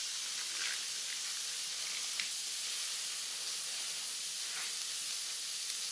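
Pork sizzling on a dome-shaped mu kratha grill pan over a charcoal stove: a steady hiss with a few faint ticks.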